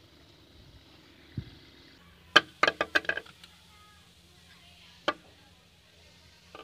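A short pipe piece being set down and handled on a hard tabletop: a quick run of sharp clicks and knocks a little over two seconds in, and a single click about five seconds in. A low steady hum runs underneath.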